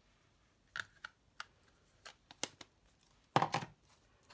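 Light clicks and taps of small craft supplies being handled on a tabletop, with one louder knock about three and a half seconds in as something is set down.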